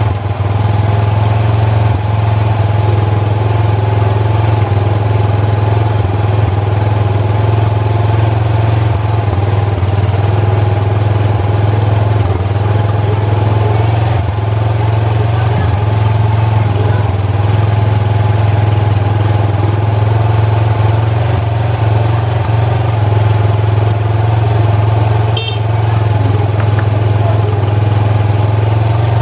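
Suzuki Skydrive 125 scooter's single-cylinder four-stroke engine idling steadily, with a brief click near the end.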